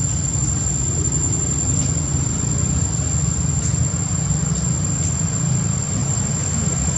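Steady low rumble with a constant high-pitched whine over it, unchanging throughout.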